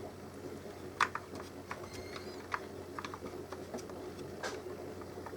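Small plastic clicks and taps as the parts of a mini Bluetooth speaker are handled and pushed back into its casing, with a sharper click about a second in, over a steady low hum.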